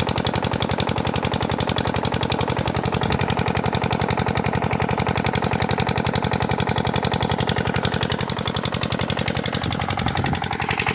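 Water pumpset engine running steadily with a rapid, even knocking beat.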